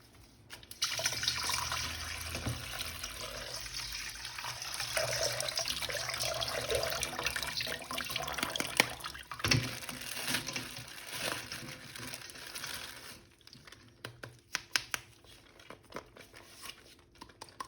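Water running from a tap over a toy being washed, stopping about thirteen seconds in, followed by a few scattered light clicks and taps of handling.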